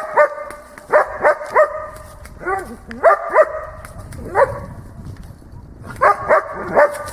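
A dog barking repeatedly in short clusters, about a dozen loud barks in all: the bark-and-hold indication at a training helper in protection-dog work.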